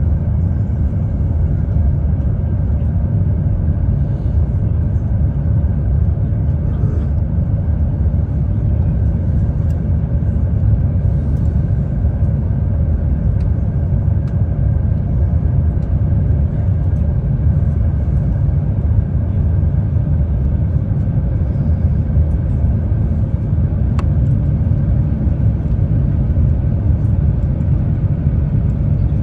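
Steady low rumble inside the cabin of an Airbus A350-1000 on final approach with flaps extended: airflow over the airframe and the Rolls-Royce Trent XWB engines at approach power.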